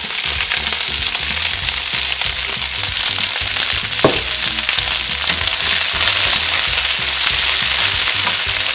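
Shredded cabbage sizzling steadily in hot vegetable oil in a stainless steel skillet, freshly added to the pan, with a short sharp sound about four seconds in and a spatula stirring it near the end.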